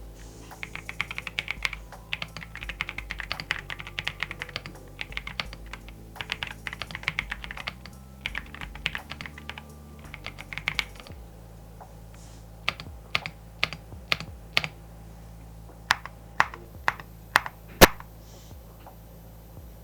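Typing on an AKKO MonsGeek M1 V5-SP gasket-mounted mechanical keyboard with Akko V3 Creamy Purple Pro tactile switches: fast, continuous typing for about ten seconds, then slower single key presses, the loudest one near the end.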